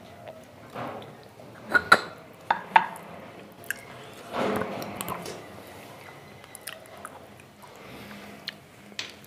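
Close-miked chewing and wet mouth sounds of eating mutton curry by hand. The loudest are a few sharp smacks about two seconds in and a longer wet sound at about four and a half seconds.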